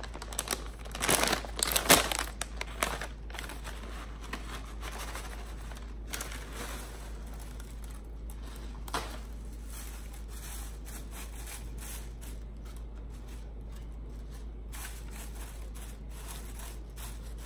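Dry broken pasta pieces shaken out of a cardboard box into a glass baking dish, rattling and crinkling, loudest in the first three seconds. Then faint rustling and clicks as the dry noodle strips are scattered and spread by hand.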